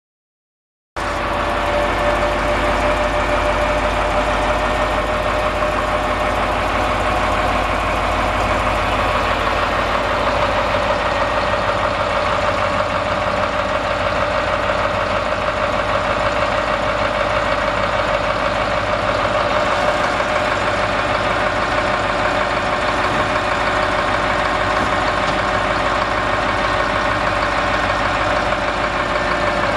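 Truck's 8.2-litre Detroit Diesel engine running steadily, with a constant high tone over the engine note. It starts abruptly about a second in.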